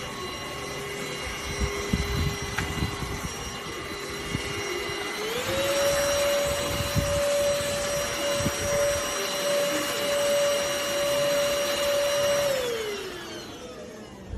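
Cordless handheld vacuum cleaner (ENOLUX ST7000) running with a steady motor whine. About five seconds in, the motor speeds up to a higher pitch and holds there, then winds down near the end as it is switched off. There are a few low knocks from handling.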